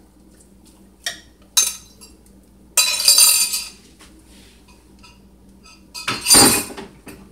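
Kitchenware clattering: two light glassy clinks, a rattling scrape around three seconds in, and a heavier clunk about six seconds in.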